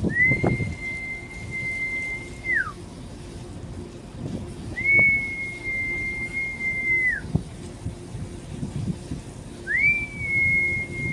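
A person whistling three long, level notes, each about two and a half seconds, sliding up at the start and dropping off at the end, repeated about every five seconds over a low background rumble.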